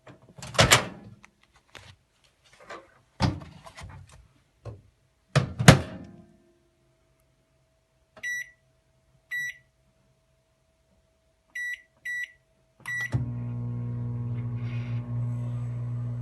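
Microwave oven being worked: several clunks and knocks from the door and handling, then five short keypad beeps, then the oven starts running with a steady low hum and fan noise near the end.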